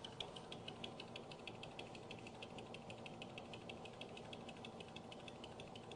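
Lathe tool tip lightly touching the double-sided tape under a spinning aluminium disc: a faint, even ticking at about seven ticks a second, once each turn, over the lathe's low hum. The ticking is the sign that the tool has reached the tape, the depth to stop at so as not to cut into the faceplate.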